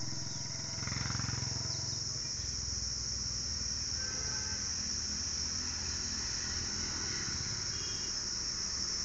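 Insects droning, a continuous high-pitched buzz, with a low rumble during the first couple of seconds.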